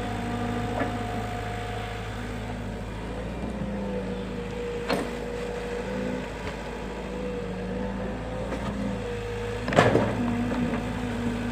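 Excavator engine running steadily with a held, slightly wavering whine, broken by a few sharp knocks, the loudest about ten seconds in.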